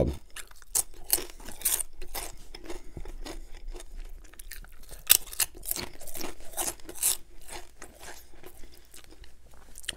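Potato chips being bitten and chewed close to the microphone: many crisp, irregular crunches, fewer near the end.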